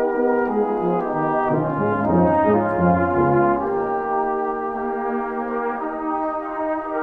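A brass band playing sustained chords. From about a second in, the low brass move through a run of short notes beneath them for a couple of seconds, then the band settles back onto held chords.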